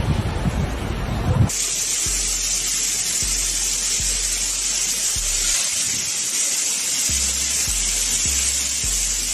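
Background music with a low, pulsing bass line over a steady hiss. The first second and a half is a loud low rushing noise that cuts off abruptly.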